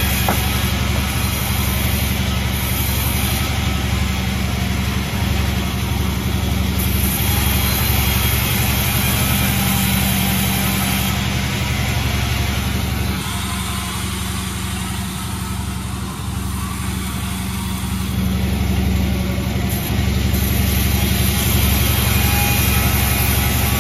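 Sawmill machinery running steadily with a low engine hum, easing a little in the middle and picking up again.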